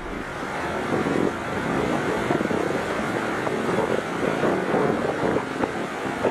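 Wind and ocean surf: a steady, rushing noise with small crackles through it.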